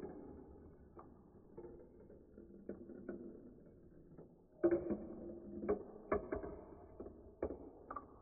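Marbles rolling and clacking through a plastic block marble run: a low rolling rumble broken by scattered sharp clicks. From about halfway through, the clicks come thicker and louder.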